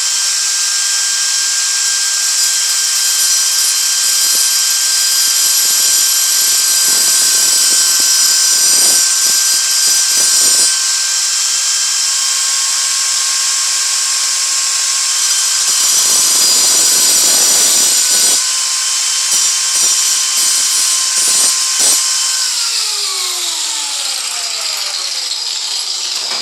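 Small high-speed power tool running at steady speed, cutting through a light-duty steel bolt held in a mini vice, with harsh grinding moments as it bites. Near the end the motor is switched off and its whine falls in pitch as it spins down.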